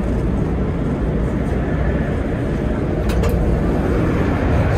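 Steady running rumble of a train made up of IC1 coaches hauled by a Vectron locomotive, with a couple of sharp clicks about three seconds in and the noise growing slightly louder toward the end.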